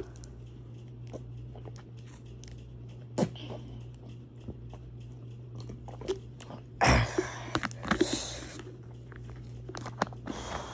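Close-up mouth sounds of someone sipping and swallowing iced tea, with scattered clicks and handling noise against the phone's microphone and a loud rustle about seven seconds in. A steady low hum runs underneath.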